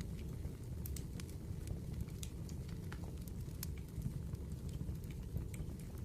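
Burning firewood crackling, with irregular sharp pops several times a second over a steady low rumble.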